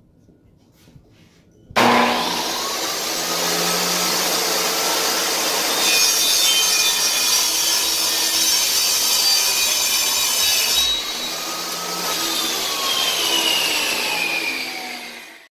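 Porter-Cable benchtop table saw switched on about two seconds in, running and ripping through a wooden drawer board, with a harsher, higher cutting sound from about six to eleven seconds. Its pitch falls near the end as it winds down and stops.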